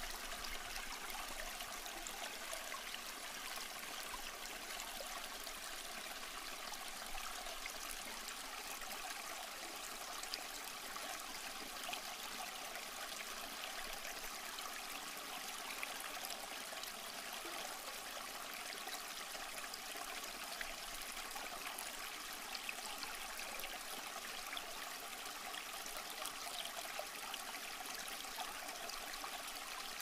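Water running steadily, like a stream or small waterfall: an even, unbroken rushing hiss with little deep rumble.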